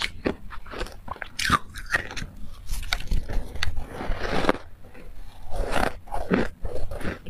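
Refrozen white ice being bitten and chewed in the mouth: an irregular run of sharp crunches, denser around four seconds in.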